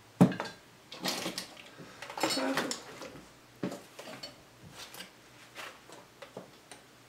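Scattered clinks and knocks of dishes and utensils on a tabletop: a sharp one just after the start, then a handful of smaller ones spread through.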